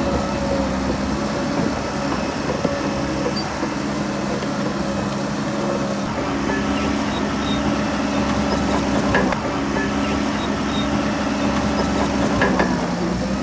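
Shantui DH17C3 PRO bulldozer's diesel engine running steadily under work, its pitch dipping briefly and picking up again near the end, with a couple of sharp knocks.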